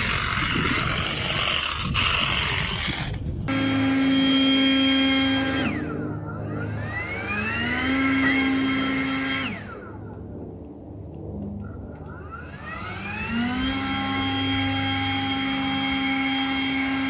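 Lawn mower motor running with a steady whine. Twice the whine winds down, then spins back up to speed. A few seconds in, it takes over abruptly from a rushing, noisy sound.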